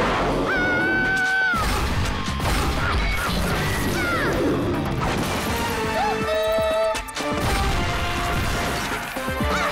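Cartoon action soundtrack: crash and impact sound effects over background music, with a brief dip in loudness about seven seconds in.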